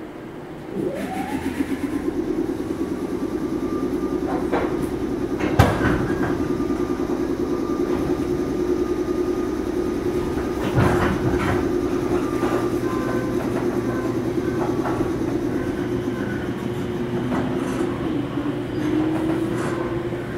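JR 413 series electric multiple unit heard from inside the passenger car, pulling away about a second in with a rising motor whine that levels off, then running steadily with the rhythmic clatter of wheels over rail joints and a couple of sharp clacks.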